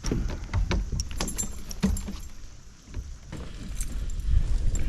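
Irregular clicks, knocks and light metallic jingling of fishing tackle being handled in a kayak, over a low rumble throughout.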